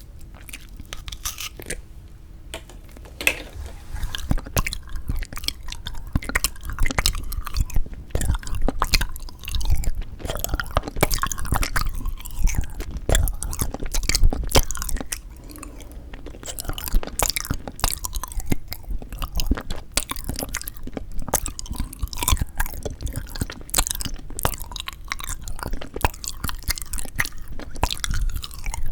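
Close-miked chewing of frozen sweet red bean jelly (yanggaeng): dense, irregular crunching and wet mouth clicks, quieter for the first few seconds and again briefly about halfway through.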